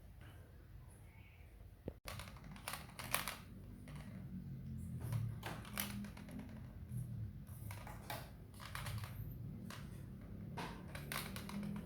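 Irregular light clicks and taps of a plastic remote control being batted and pawed about by kittens, with a steady low hum underneath from about two seconds in.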